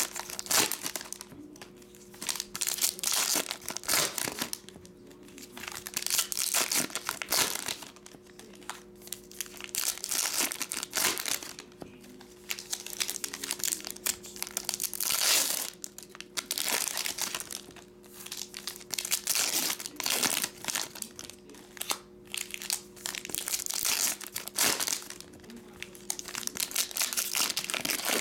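Foil wrappers of Panini Hoops basketball card packs crinkling as they are handled and pulled open, in irregular bursts every second or few seconds.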